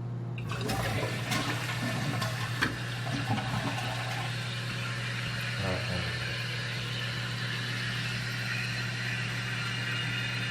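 2014 Western Pottery Aris toilet flushing: a rush of water with gurgles and knocks over the first few seconds, settling into a steady hiss as the tank refills.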